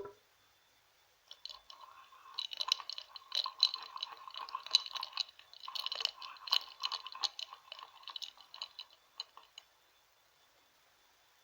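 Ice cubes stirred in a glass of water, clinking rapidly against the glass with a light ringing. The clinking starts about a second and a half in and stops near ten seconds.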